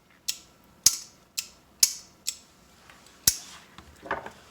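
On/off switch mechanism of an old Furnas compressor pressure switch being worked by hand, snapping with six sharp clicks about half a second apart, the last after a short pause.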